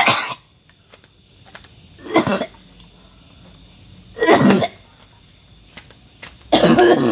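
A man coughing hard four times, about two seconds apart, the last cough longer than the others.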